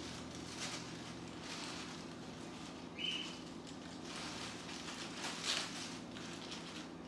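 White cockatoo tearing and crinkling paper towel and a paper flyer with its beak, in irregular rustling bursts, the loudest about five and a half seconds in. A short high peep sounds about three seconds in, over a steady low hum.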